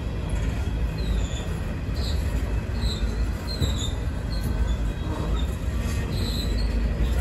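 Empty coal hopper cars of a freight train rolling past on the rails: a steady low rumble, with short high-pitched wheel squeals several times.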